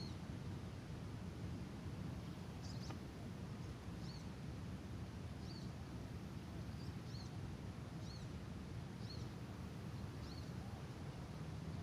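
A small bird repeats a short, high chirp about once every second or so, over a steady low rumbling background noise.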